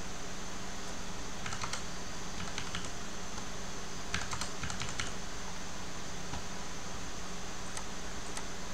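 Computer keyboard typing in a few short bursts of key clicks, entering numbers, over a steady background hum.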